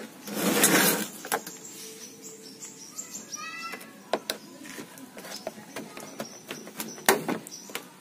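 Plastic clicks, scrapes and creaks as a flat pry tool works the screwless snap latches of a twin-tub washing machine's plastic top cover loose. There is a longer scraping rub in the first second and a sharper crack a little after seven seconds.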